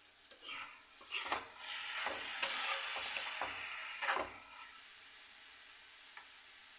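Steel ladle stirring and scraping cabbage and potato frying in a metal kadhai, with several sharp scrapes against the pan over the first few seconds and sizzling throughout. The stirring stops after about four seconds, leaving a steady, quieter sizzle.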